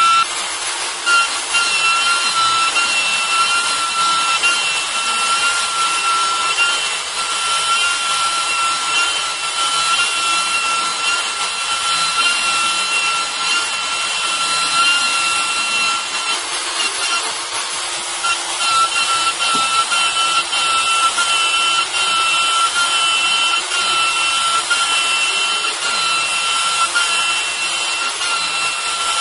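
A Kress router spindle runs at high speed with a steady high whine while its bit mills into a solid block, giving a hissing cutting noise. The whine fades for a couple of seconds a little past halfway, then returns.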